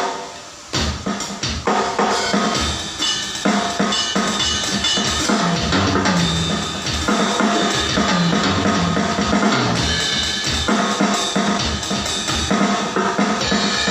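Drum kit being played: one hit, a pause of under a second, then continuous playing with dense strikes and ringing cymbals.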